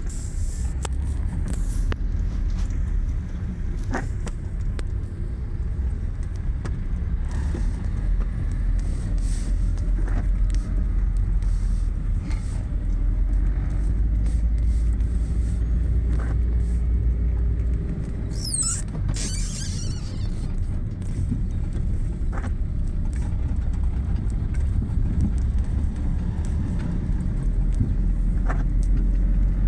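An engine running steadily at low speed, with a few scattered knocks and a brief high scraping sound about two-thirds of the way through.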